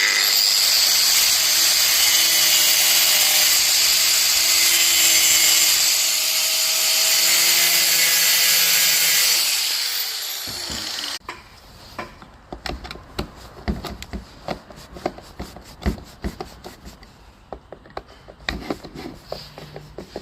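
Power tool running steadily at high speed for about ten seconds, working on rotten, seized screws, then winding down with a falling pitch. Irregular clicks and taps of tool handling follow.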